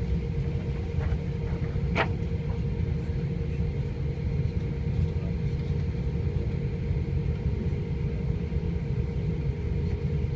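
Cabin noise of a four-engine Airbus A340 taxiing: a steady low rumble with a steady hum over it. A single sharp click about two seconds in.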